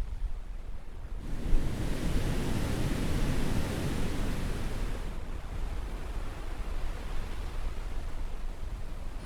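Sea surf: a wave surges in about a second in, washes for a few seconds and then eases back to a lower steady wash.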